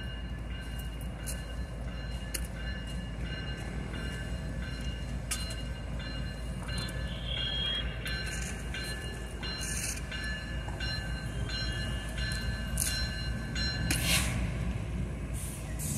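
Diesel-electric freight locomotive running at low throttle as it creeps forward over the switches, a steady low rumble with short sharp clicks and squeaks from the wheels on the rails.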